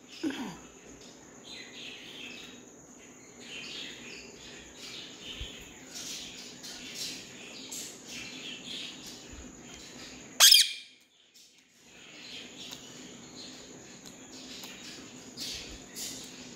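Rose-ringed parakeet making soft, repeated chirps and chatter, with one loud, sharp upward-sweeping shriek about ten seconds in.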